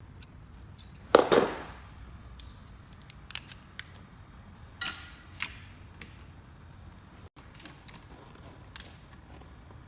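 Click-type torque wrench tightening a bolt: a series of sharp, irregular clicks and knocks, the loudest about a second in. The wrench's click is the signal that the set torque has been reached.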